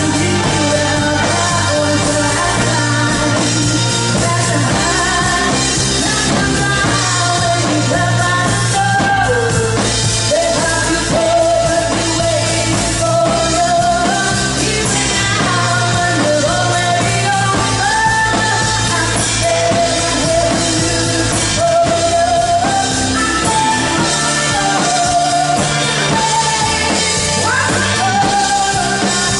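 A band playing a pop-rock song, with a lead singer's voice over a steady bass line.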